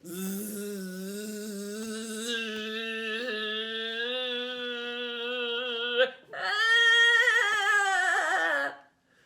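A woman's voice making a long, steady buzz in imitation of angry bees. A second, louder and wavering buzz follows about six seconds in and drops in pitch as it ends.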